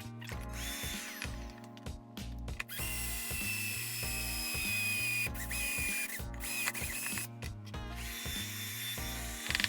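A power drill running for several seconds, its whine sliding lower, over background music with a steady beat.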